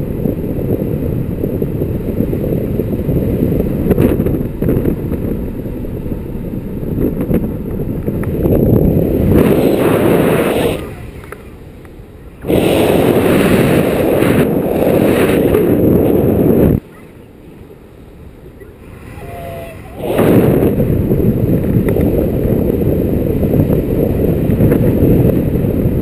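Wind rushing over the camera's microphone in flight under a paraglider, a low steady rumble. It drops away abruptly twice, for about a second and a half and then about three seconds, before returning.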